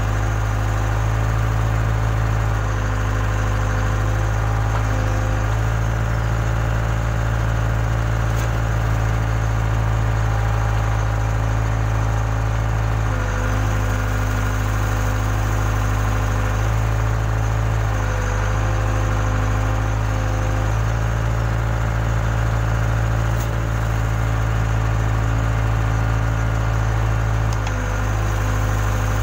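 Case 580K backhoe loader's diesel engine running steadily, its note shifting slightly every few seconds as the engine speed changes under load while the backhoe works.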